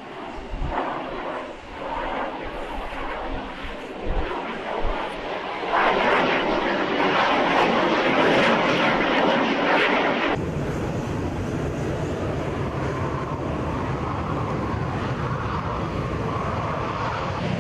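Jet aircraft engine noise: a rushing roar that swells to its loudest in the middle, then cuts abruptly about ten seconds in to a steadier, lower rumble.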